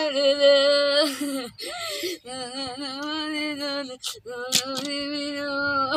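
A woman wailing in grief: a long, wavering, song-like mourning lament held on drawn-out notes, broken by a few short pauses for breath.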